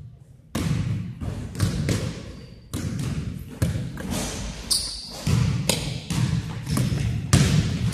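A basketball bouncing on a gym floor during play: irregular thuds every half-second to second, in a large hall. A short high sneaker squeak comes about five seconds in.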